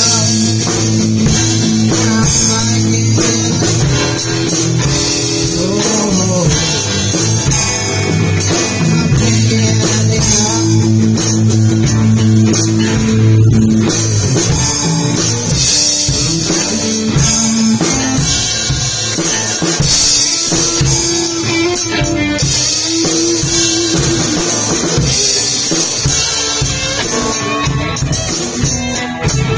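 Live rock band jam: a hollow-body electric guitar, a Stratocaster-style electric guitar and a drum kit playing together, with cymbals ringing over the top.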